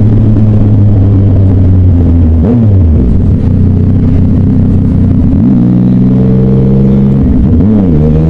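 Yamaha Tracer motorcycle engine running through low-speed traffic. Its note holds steady, falls away about two and a half seconds in as the throttle is eased off, picks up again a little past halfway and dips once more near the end.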